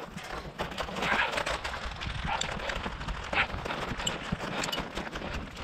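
Footsteps on the ground with a player's gear rattling: a run of irregular clicks and knocks.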